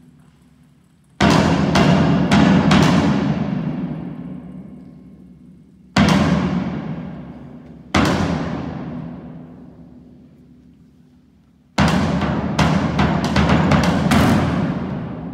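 Orchestra with heavy percussion playing loud accented hits: a rapid cluster of strikes about a second in, single hits about six and eight seconds in, and another cluster near the end. Each one rings away over a few seconds.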